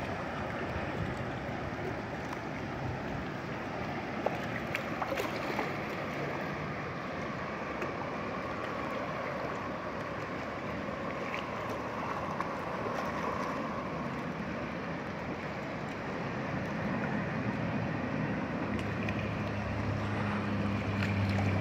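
Shallow river water flowing over rocks and through small rapids, a steady rushing hiss. In the last few seconds a low steady hum joins underneath.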